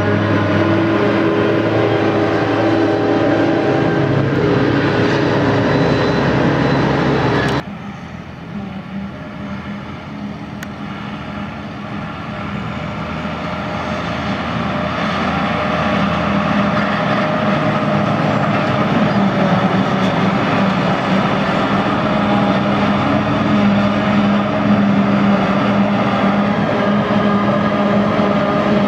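Claas Jaguar 890 self-propelled forage harvester chopping grass, its engine and chopper running with a steady drone, with a New Holland tractor pulling the silage trailer alongside. The sound drops off abruptly about seven and a half seconds in, then builds louder again over the following several seconds as the machines come closer.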